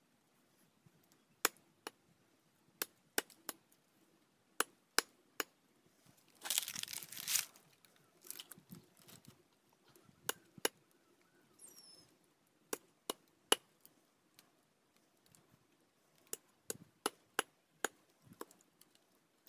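A large knife chopping raw chicken on a wooden log: sharp, irregular knocks as the blade cuts through into the wood, coming in small clusters. A short burst of rustling about six to seven seconds in.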